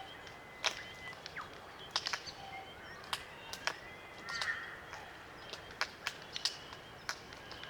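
Glossy black cockatoos feeding on Allocasuarina cones: irregular sharp clicks as their beaks crack the cones, with a short creaky call near the middle.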